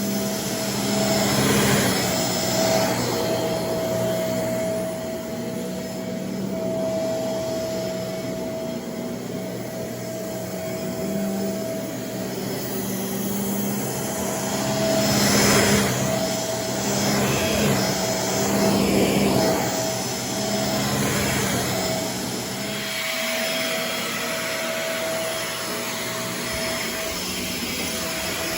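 Shark Navigator Swivel bagless upright vacuum cleaner running, a steady motor whine under a rush of air that swells louder a few times, most strongly about halfway through.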